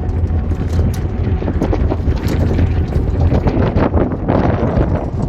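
Steady low drone of a moving vehicle's engine, with wind buffeting the microphone and scattered short knocks and rattles.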